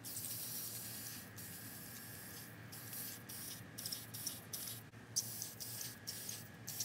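Aerosol spray-paint can hissing as black paint goes onto metal buffer heads: one long spray with a brief break, then a string of short bursts in the second half.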